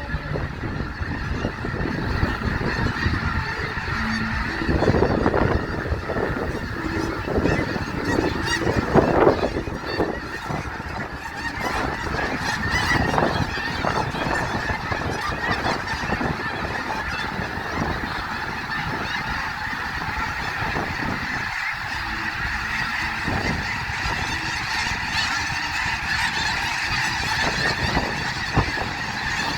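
A large flock of snow geese calling together, a dense, continuous chorus of overlapping honks.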